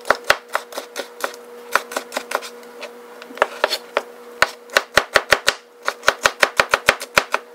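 Kitchen knife dicing a red bell pepper on a cutting board: sharp knocks of the blade hitting the board. They come scattered at first, then quicken to a steady run of about five or six chops a second in the second half.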